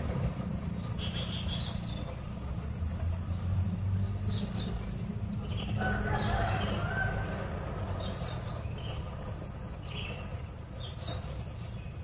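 Greater coucal shifting at its nest, its wings and tail brushing the dry grass, with short high chirps every second or so.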